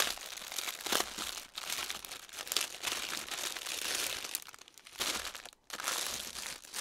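Clear plastic wrap crinkling and rustling as it is pulled off a bundle of bagged diamond painting drills, with a short pause about five and a half seconds in.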